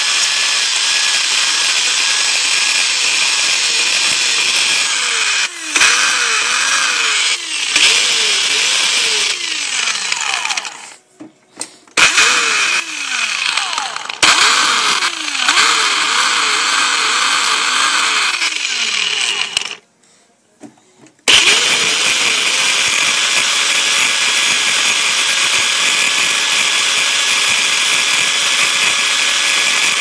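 Homemade blender built from scrap, its electric motor running at high speed with a whine whose pitch dips and recovers again and again as it bogs under load. It is stopped twice, briefly, and restarted, then runs steady.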